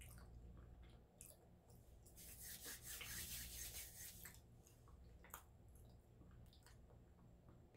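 A person's hands rubbing together in a soft brushing rasp for about two seconds, starting about two seconds in, with a few faint ticks, over a faint steady low hum.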